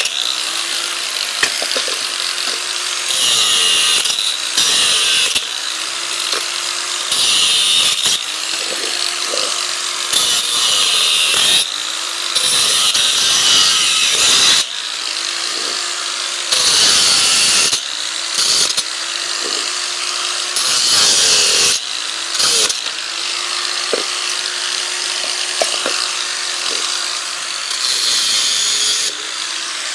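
A small power tool running in repeated short bursts of about one to two seconds each, with a steadier mechanical whir between them.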